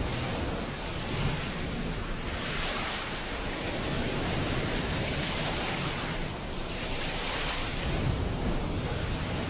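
Ocean surf washing onto a beach: a steady hiss of water that swells twice and fades away as waves come in.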